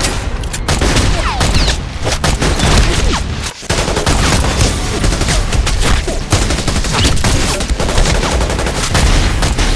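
Dense, rapid gunfire sound effects: handgun shots and automatic rifle bursts overlapping almost without a break, with a brief dip about three and a half seconds in.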